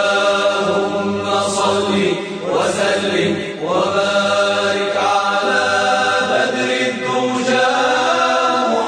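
Arabic devotional chanting of the salawat, blessings on the Prophet Muhammad, with the syllables drawn out in long, held melodic notes that glide from pitch to pitch.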